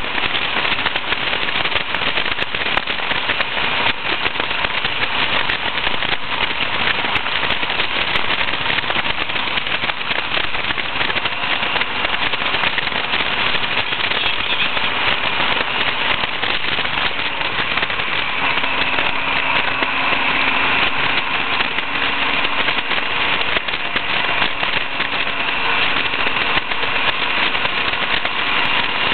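Wind rushing over the microphone in an open-cockpit Westfield SE sports car at road speed, a loud, rough, steady noise, with the car's engine running faintly underneath.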